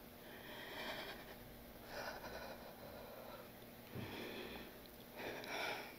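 A woman's faint sniffs and breaths, four of them about a second and a half apart, as she holds back tears.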